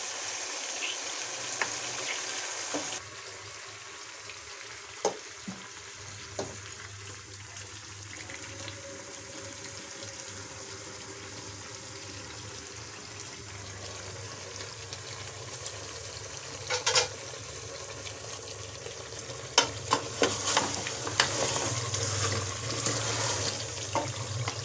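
Mutton and masala sizzling as they fry in an aluminium pressure cooker, with a wooden spoon knocking and scraping against the pot as the masala is stirred into the meat. The knocks come thicker and louder in the last third.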